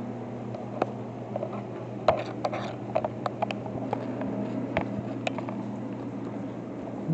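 Handling noise from a handheld camera being moved about: scattered irregular clicks and knocks, most of them between about two and three and a half seconds in, over a steady low hum.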